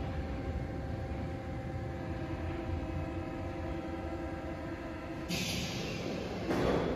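MF 67 metro train standing at the platform, its onboard equipment running with a steady low rumble and a few held humming tones. About five seconds in, a hiss of compressed air starts, and near the end a louder burst of air release is the loudest moment.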